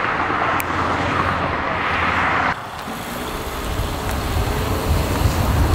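Car driving on a highway: steady road and tyre noise that drops suddenly about two and a half seconds in, then a low rumble that builds again.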